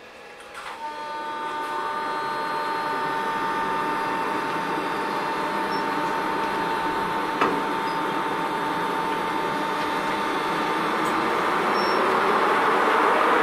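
Standing electric locomotive coupled to a passenger coach, its machinery starting up about a second in and running with a steady whine over a rushing hiss. A single sharp click comes midway, and the hiss grows louder near the end.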